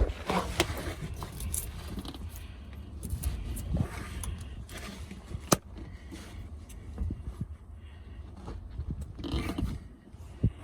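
Irregular metal clanks, rattles and scrapes from handling the excavator's controls and cab fittings, with one sharp knock about halfway through.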